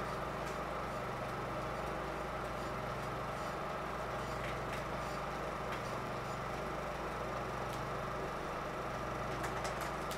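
A steady low mechanical hum with a slight regular pulse about once a second and a few faint clicks.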